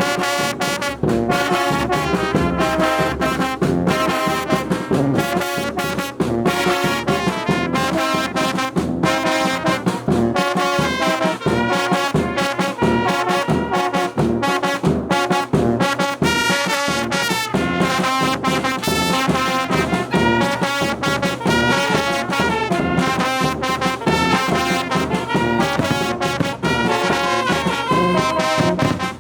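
A traditional Mixtec village brass band (banda) playing, horns in full sound over a steady percussion beat.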